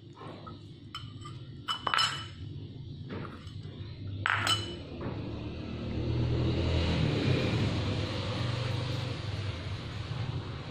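Metal spoon clinking against a ceramic bowl: two sharp clinks about two and a half seconds apart, each ringing briefly. A steady low rumble comes in about halfway through.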